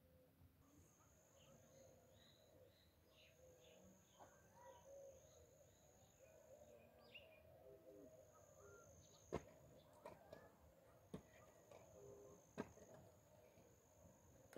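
Faint outdoor countryside ambience: small birds chirping in quick short calls, over a high steady buzz that runs in long stretches with breaks. Several sharp clicks stand out in the second half.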